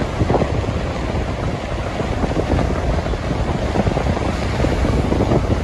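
Heavy storm surf breaking over rocks and pouring back off them, with strong wind buffeting the microphone and a loud, steady rush.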